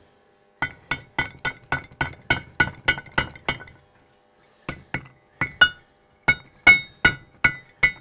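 Hammer striking a freshly welded steel pin: a quick run of sharp, ringing metallic blows about four a second, a pause of about a second, then more blows.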